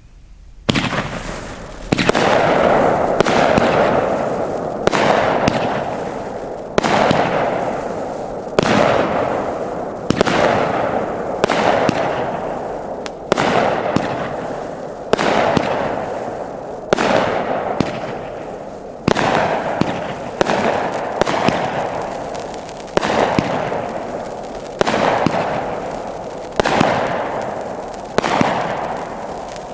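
A 25-shot, 500-gram consumer firework cake firing, with a shot about every two seconds. Each shot's break trails off into a fading crackle before the next one.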